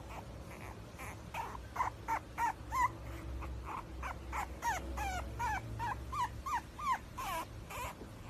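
French bulldog puppy whimpering: a long run of short, high whines that bend in pitch, about three a second, starting about a second in.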